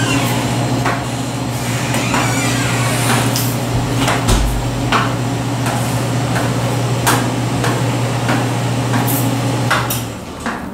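Spatula scraping and tapping on a stone tabletop in repeated strokes, spreading melted chocolate to cool it during tempering. A steady low machine hum runs underneath and stops about ten seconds in.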